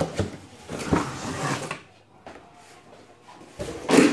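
Corrugated cardboard scraping and rustling as an inner cardboard box is pulled out of a larger shipping carton, followed near the end by a louder cardboard knock.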